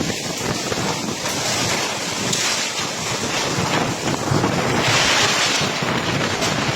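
Violent storm wind blowing in gusts and buffeting the microphone, with a stronger gust about five seconds in.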